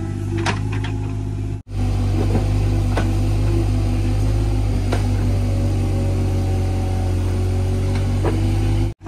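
Hitachi mini excavator's diesel engine running steadily under digging load, with scattered short knocks and scrapes as the bucket works soil and roots in the pit. The sound cuts out for an instant about a second and a half in and again near the end.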